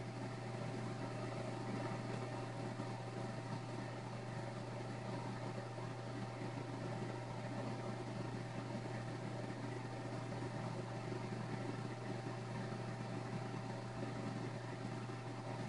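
Steady low hum and even hiss of a running machine, with a faint higher tone above the hum.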